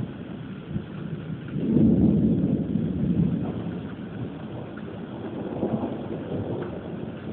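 Thunder rumbling. It swells suddenly about two seconds in and rolls away over several seconds, then swells again more softly near the end, with rain falling throughout.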